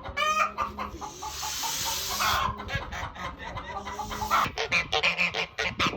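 Chickens clucking in many short, quick calls that crowd together over the last second and a half. A steady hiss sits under the first half.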